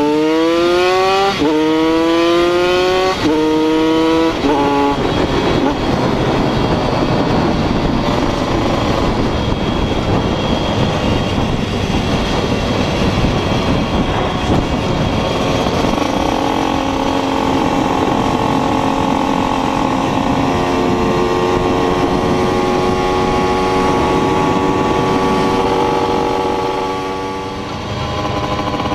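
Small motorcycle engine pulling hard through the gears, its revs climbing and dropping at three quick upshifts in the first few seconds, then running at steady cruising revs with heavy wind rush on the microphone. It eases off briefly near the end.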